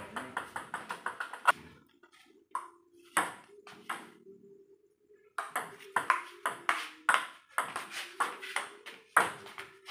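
Celluloid-type table tennis ball clicking off the table and the players' paddles. A quick run of small bounces dies out within the first second and a half, a few single hits follow, and from about five seconds in a rally of hits at roughly two a second.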